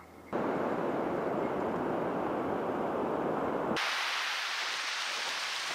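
Loud, steady rushing noise of the open coast, the wind and sea noise a small action camera picks up. It starts suddenly, then switches abruptly to a brighter hiss a little over halfway through.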